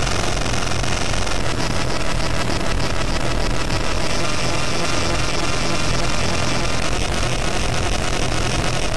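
Harsh noise / power electronics generated by a SunVox modular synth patch: a dense, unbroken wall of noise with a steady low hum beneath and hiss on top, like a running engine.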